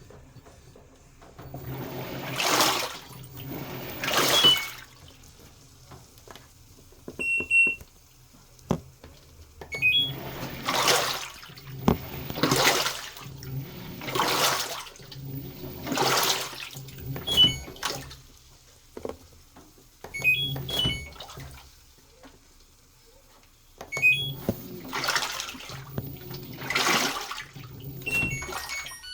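LG washing machine's drum turning through water: a sloshing swish about every two seconds, in runs of two to four with quiet pauses between, as the drum rocks back and forth in the wash.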